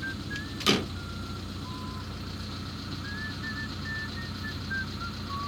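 A vehicle engine running steadily with a low hum, with one sharp knock less than a second in, the loudest sound. A string of short high chirps at shifting pitch comes and goes over it.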